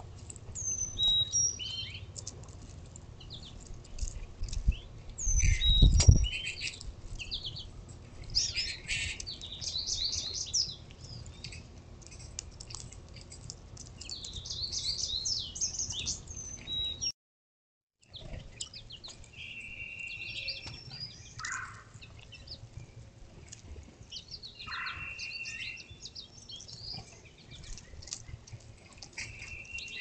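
Several wild birds chirping and singing in short high calls and trills. About five to six seconds in, a low rumbling thump is the loudest sound, and just past the middle the sound cuts out completely for about a second.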